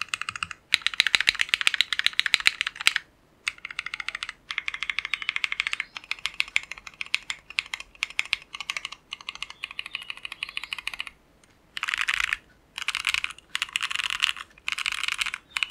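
Ozma60 aluminium top-mount custom mechanical keyboard being typed on, fitted with Tecsee Jadeite switches, a three-layer masking-tape mod on the PCB and foam inside: fast runs of poppy keystroke clacks with a few brief pauses.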